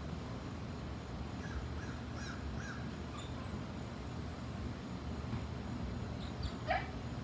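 Birds calling over a steady low rumble: a few faint chirps between about one and a half and three seconds in, then one louder call near the end.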